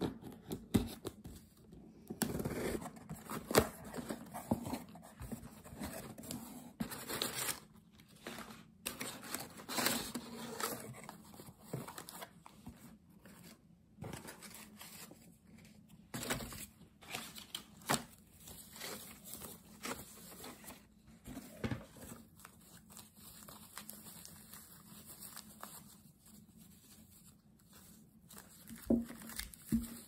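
Hands opening a cardboard box: packing tape tearing off, cardboard flaps scraping and rubbing, and tissue paper rustling toward the end, in uneven spells with short breaks.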